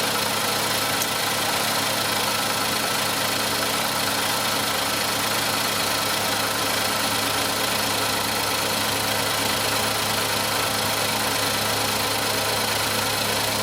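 2010 Mazdaspeed 3's turbocharged 2.3-litre four-cylinder engine idling steadily.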